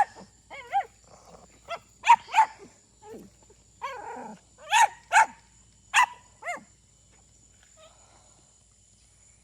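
A dog barking: a string of about a dozen short, high barks that stops about six and a half seconds in.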